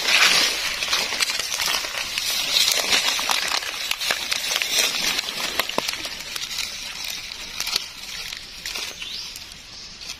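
Dry leaf litter rustling and crackling in quick irregular snaps, louder at first and fading toward the end.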